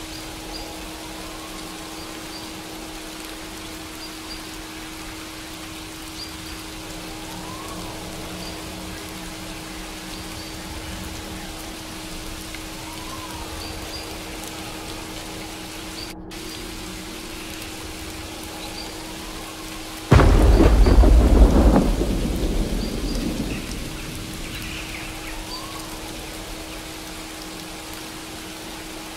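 Steady rain with a loud thunderclap about two-thirds of the way through that rumbles and fades over a few seconds, over a faint steady low hum.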